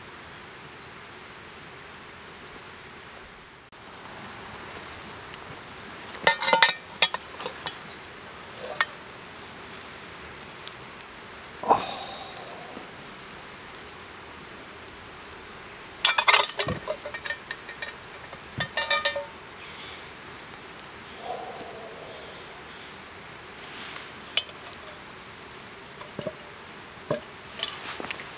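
Metal clanks and clinks from a cast iron Dutch oven: the heavy lid is lifted off with a lid lifter and the wire bail handle knocks against the pot, in several short groups of ringing knocks over a steady background hiss.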